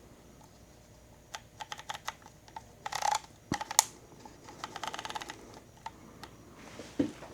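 Pentax K1000 35mm film camera being handled: a string of small mechanical clicks and taps, with a louder click cluster near the middle and a quick run of close-spaced ticks just after.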